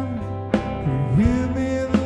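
A band with lead vocals, guitar, bass and drums playing a song in a studio practice: held sung notes over a steady bass, with drum hits about half a second in and near the end.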